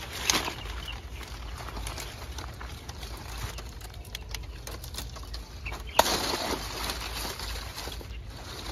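Pineapples being picked by hand in the field: rustling of their newspaper wrappings and the spiky leaves, with scattered short snaps and one louder crack about six seconds in, over a low steady rumble.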